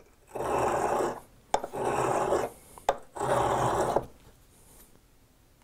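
The tip of a heat-treated O1 tool-steel boring bar pushed along a sharpening stone in three rasping strokes, each about a second long, honing the cutting edge to take down its high spots.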